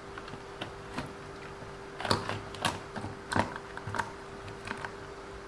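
Irregular light clicks and taps of small RC car parts being handled and fitted by hand, busiest in the middle, over a steady faint hum.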